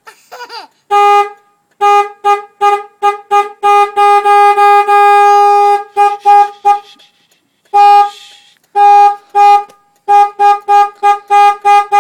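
Jeep horn honked over and over in short beeps: one long blast of about two seconds near the middle, then a brief pause, then a fast even string of about three beeps a second near the end.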